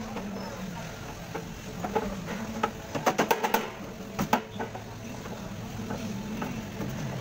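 Small metal crimp lugs on wire ends clicking against each other and the panel's metal as they are handled: a quick run of about six sharp clicks about three seconds in, then two more a second later, over a steady low hum.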